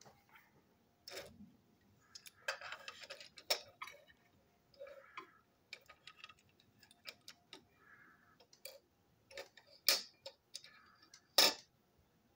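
Plastic parts of a toy locomotive's chassis being handled: irregular light clicks and taps with some rustling, and two sharper clicks near the end.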